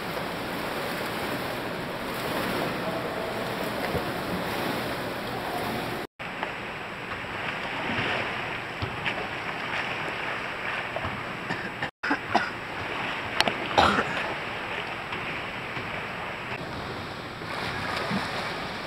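Pool water sloshing and splashing as a kayak is thrown through freestyle tricks, with a couple of sharper splashes about 13 to 14 seconds in. The sound cuts out briefly twice.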